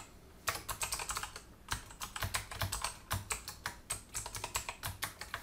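Typing on a computer keyboard: runs of quick keystrokes with short pauses between them.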